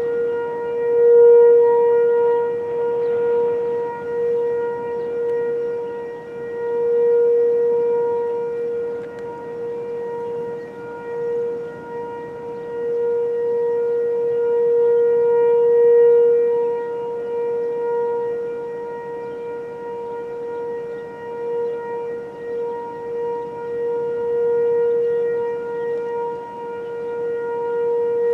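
Outdoor tornado warning siren sounding a steady wail at one pitch, swelling and fading in loudness several times.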